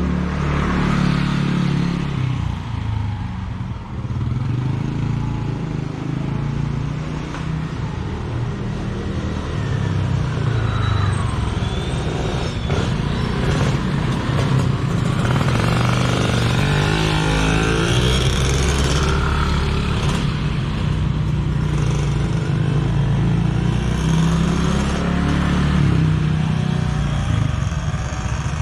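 Road traffic: motor vehicles running and passing close by, with a steady low engine sound throughout and a few passes that rise and fall in pitch.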